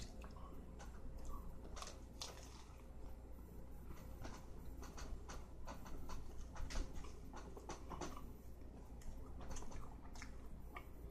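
A person biting into and chewing a lettuce-filled tuna sandwich close to the microphone: irregular, closely spaced mouth clicks and smacks.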